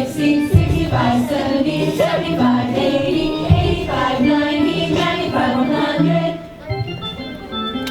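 A group of young children singing a children's song along with a recorded backing track. The music thins out near the end, leaving a few held notes.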